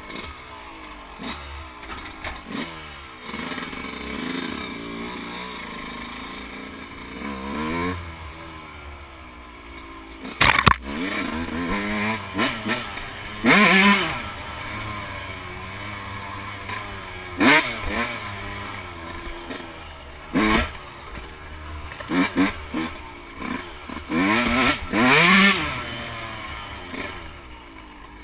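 Yamaha YZ125 two-stroke single-cylinder motocross engine being ridden, its pitch climbing and falling with the throttle. It runs lower for the first ten seconds or so, then gives a series of loud, sharp revs through the rest.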